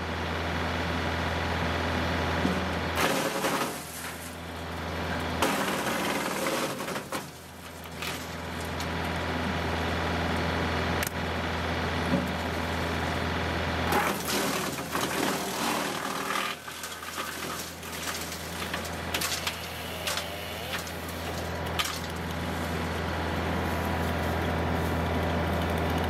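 Frontier WC1105 PTO-driven wood chipper running off a John Deere 2038R compact tractor, with a steady drone. Wood cracks and splinters in bursts as limbs about 3 to 4 inches thick are fed in and chipped, and the drone dips briefly a few times while the machine chews through them.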